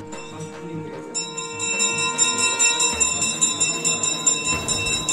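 Hindu temple bell rung rapidly in an even rhythm during worship, the strikes starting about a second in and ringing on together.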